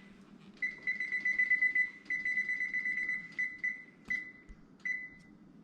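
Electronic beeps from an oven's control panel as it is set: two long tones, the second with a few light clicks, then two short beeps near the end.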